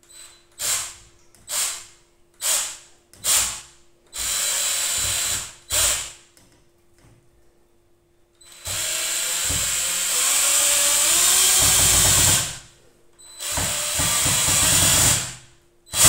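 Cordless drill-driver driving screws into the aviary frame at the door hinge. First come four short trigger bursts about a second apart, then longer runs, the longest about four seconds.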